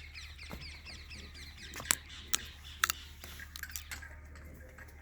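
Small birds chirping in a busy, overlapping chatter of quick falling notes that thins out after about three and a half seconds. Three sharp clicks or knocks stand out about two to three seconds in, over a steady low hum.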